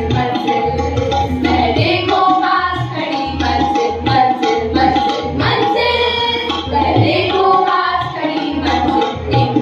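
A group of young voices, girls with one boy, singing together into microphones, accompanied by harmonium and tabla. The tabla strokes keep an even rhythm under the held harmonium notes.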